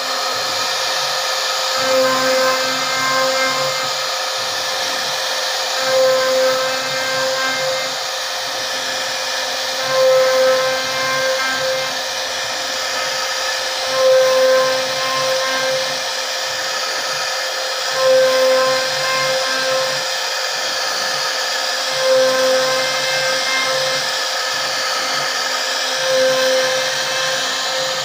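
CNC router spindle running a profile bit along the edge of a wooden frame piece: a steady machine whine with cutting noise. It swells louder for about a second roughly every four seconds.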